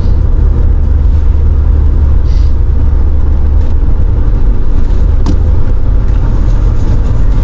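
Steady low rumble of a car driving at speed, engine and tyre noise heard from inside the cabin.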